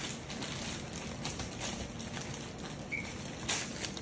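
Plastic packaging crinkling and rustling in short, scattered crackles as it is handled.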